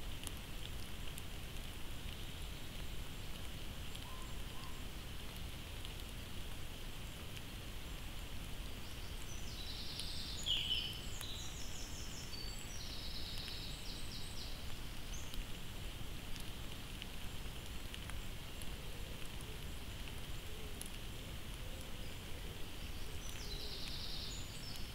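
Woodland ambience picked up by a trail camera's microphone: a steady hiss over a low rumble, with short high bird trills about ten seconds in, again a few seconds later and near the end.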